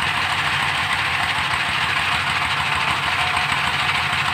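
Small stationary diesel engine running steadily at a constant speed, driving the pump on the well-drilling rig.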